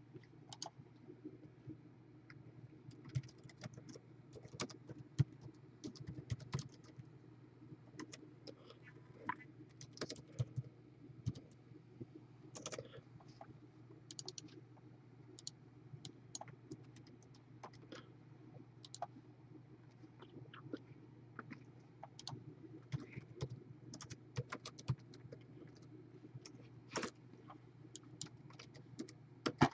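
Faint computer typing: irregular key clicks scattered throughout, over a steady low hum.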